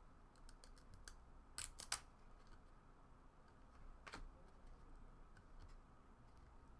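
Trading cards being handled and flipped through in near silence: scattered faint crisp clicks of card stock, with two sharper snaps about a second and a half in and another around four seconds in.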